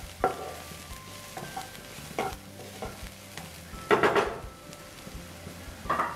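A wooden spatula scrapes and stirs chopped onions around a non-stick frying pan in several strokes, the loudest about four seconds in, over a steady low sizzle of the onions frying in oil.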